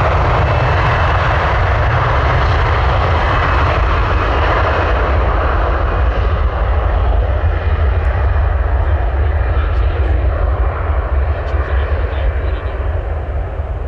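Gulfstream G450 business jet's two Rolls-Royce Tay turbofans running at high thrust as it starts its takeoff roll: a loud, heavy rumble under a jet hiss. The hiss thins from about halfway as the jet turns its tail and pulls away, and the sound falls off near the end.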